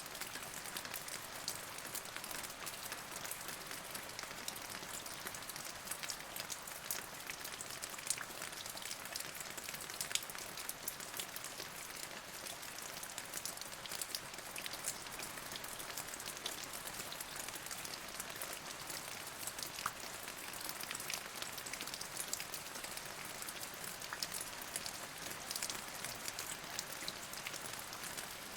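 Steady rain falling, a continuous hiss with many individual drops ticking sharply on a surface throughout.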